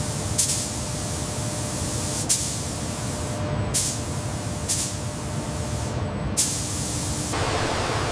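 Compressed-air hiss in a car factory: a steady hiss broken by five short, sharp spurts of air over several seconds. The hiss turns fuller about seven seconds in.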